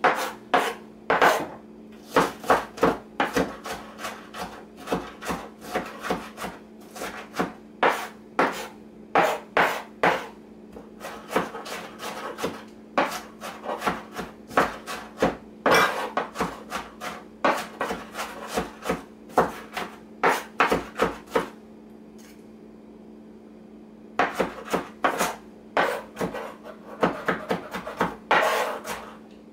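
Kitchen knife chopping onion and bell peppers finely on a plastic cutting board: quick runs of sharp taps, pausing for about two seconds roughly three-quarters of the way through.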